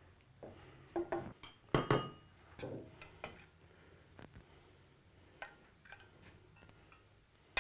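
A spoon clinking and scraping against a small pan as food is spooned out. There are a few sharp clinks, the loudest about two seconds in with a brief metallic ring, then only scattered light taps.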